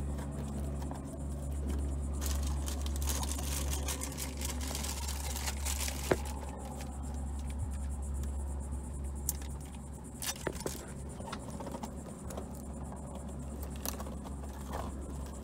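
Small clear plastic bag rustling and crinkling as hands handle and peel hook-and-loop (Velcro) pieces, with scattered light clicks and scrapes, over a steady low hum.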